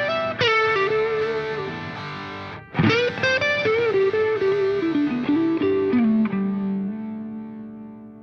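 Background music led by a guitar melody, settling onto a long held low note about six seconds in that fades away.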